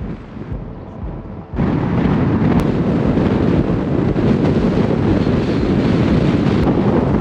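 Wind buffeting the microphone of a car-mounted camera, mixed with road and car noise, as the car drives along. The rush jumps suddenly louder about a second and a half in and then stays steady.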